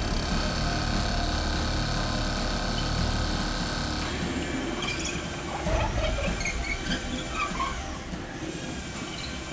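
Corded power drill boring into concrete rubble, running steadily for about four seconds and then stopping. Scattered small knocks and scrapes follow.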